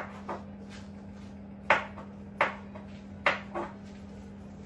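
Kitchen utensils knocking and clinking at the worktop: about seven sharp, irregularly spaced knocks with a slight metallic ring. A steady low hum runs underneath.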